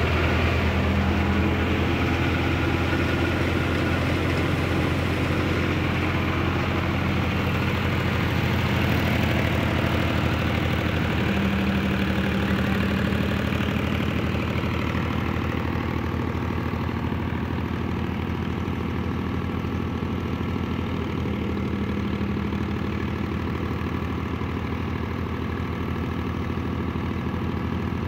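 A 480 tractor's diesel engine running steadily under load, driving a wheat thresher through its PTO shaft, mixed with the thresher's steady mechanical whirr.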